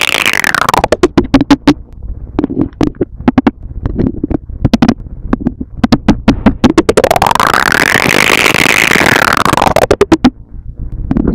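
Electronic synthesizer music: a fast, dense clicking beat with short low notes, and a synth tone that sweeps down at the start and then rises and falls again about seven to ten seconds in.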